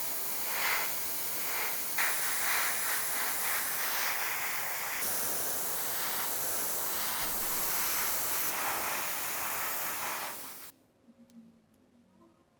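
Steady hiss of a pressurized spray, running continuously and cutting off abruptly about three-quarters of the way in.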